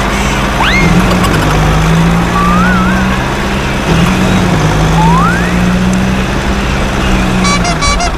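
Steady low engine drone of a truck, with a few short whistle-like rising glides over it and a quick run of short beeps near the end.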